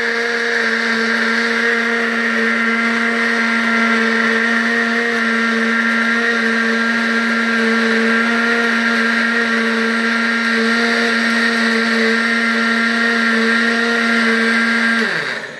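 Electric countertop blender running steadily, blending a full jug of falsa berry juice with a steady motor hum. Near the end it is switched off and the motor winds down, falling in pitch.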